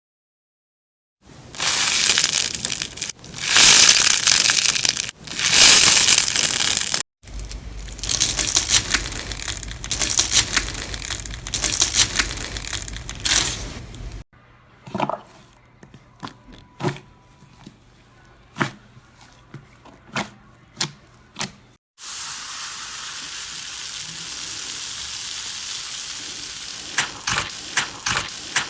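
Slime being squeezed, stretched and poked in a run of short clips. Dense crackling and crunching comes first, then sparse sharp pops and clicks, then a steady hiss for the last several seconds.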